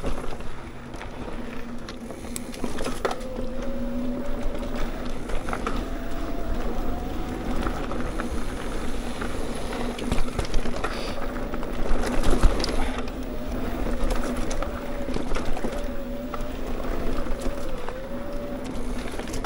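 Mountain bike ridden over a dirt trail: steady tyre and wind noise with scattered rattles and knocks from the bike, under a steady hum.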